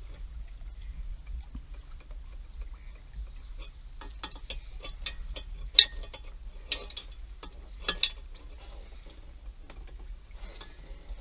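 Wrench turning the forcing bolt of a propeller puller clamped on an inboard boat prop, giving a run of sharp metal clicks and ticks that starts about four seconds in, the loudest near six and eight seconds. The puller is being tightened slowly to break the prop free of its shaft.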